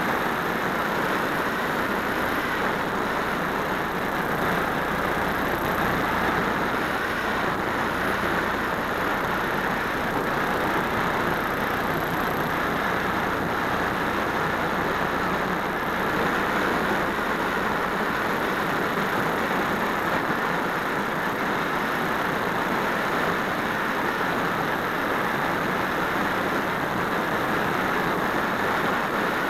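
Steady rush of airflow over the microphone of a wing-mounted keychain camera on an RC glider in flight, even and unbroken, with a faint high steady whine.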